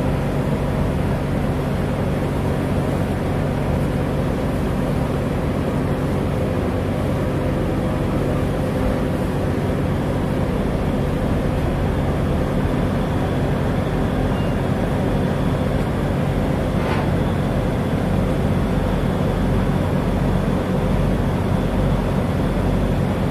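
Passenger ferry's engines running steadily at cruising power, a constant drone with a low hum and a rushing noise over it.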